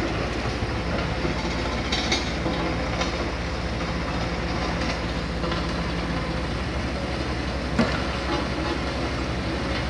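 Bomag single-drum road roller's diesel engine running as the roller compacts loose stone fill: a steady low rumble with a fast, even pulsing. A sharp knock stands out about eight seconds in.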